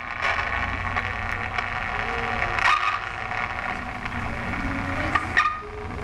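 Experimental car-alarm sound piece played through horn loudspeakers on a car's roof: a steady low rumbling, noisy texture with a few sharp clicks, and a tone that slides upward about five seconds in.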